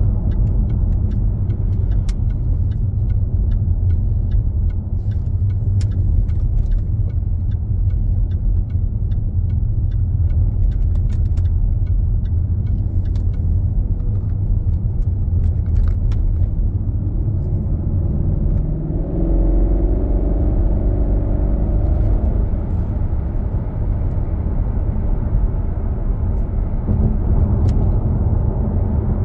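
Jaguar XK's V8 engine and road noise heard from inside the cabin while driving: a steady low rumble, with light evenly spaced ticking through the first half like a turn indicator, and the engine note rising as the car accelerates about two-thirds of the way through.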